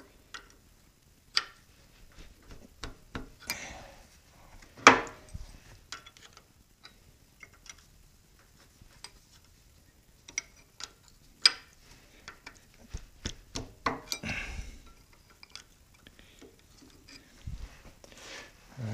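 Small metal clicks and clinks from hands working on a lathe headstock's parts, with two sharper knocks, about five and eleven seconds in, and a short scrape near fourteen seconds.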